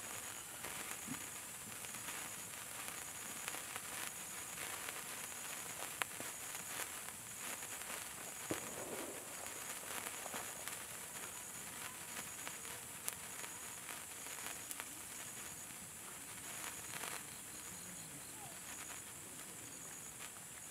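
A 36-inch gold sparkler burning: faint steady fizzing, dotted with many small crackles and an occasional sharper pop.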